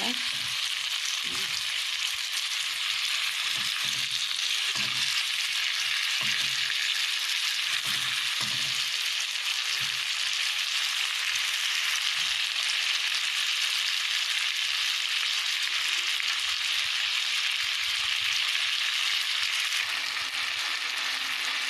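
Chopped onions and tomatoes sizzling steadily in hot cooking oil in a pot. Soft knocks of a utensil stirring them come now and then through the first half.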